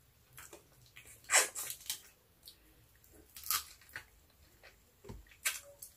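Close-up mouth sounds of someone sucking and chewing on bony pieces of fried milkfish held in the fingers: short, wet smacks and slurps, the loudest about a second and a half in and again about three and a half seconds in.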